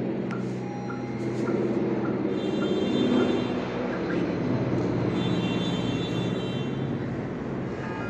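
A steady low engine drone throughout, with a few short electronic beeps early on and two longer electronic chimes from the digital door lock, one about two and a half seconds in and one about five seconds in.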